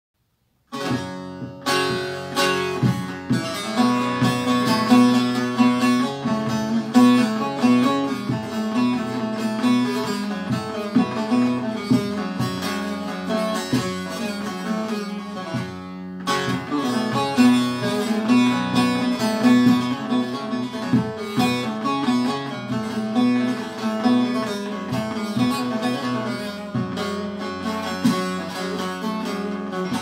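Two bağlamas (Turkish long-necked saz lutes) playing a lively plucked melody together as the instrumental introduction to a Turkish folk song (türkü). The playing starts under a second in and dips briefly about halfway through before carrying on.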